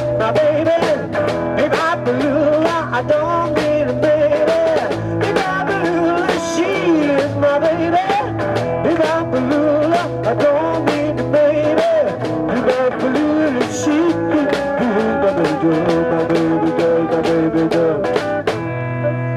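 Live rock-and-roll band playing, with drum kit, electric bass and electric guitar under a wavering, pitch-bending lead melody. A little before the end the drumming stops and the band holds a ringing chord.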